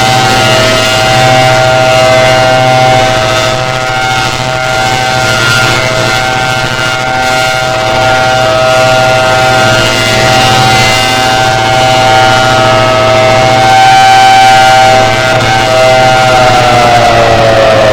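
Thunderbolt civil-defence siren sounding a steady high wail on a test, its loudness swelling and fading slowly, with a low hum underneath. Near the end the pitch starts to fall as the siren winds down.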